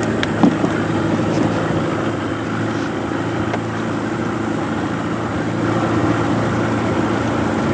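Small river boat's outboard motor running steadily with the boat under way.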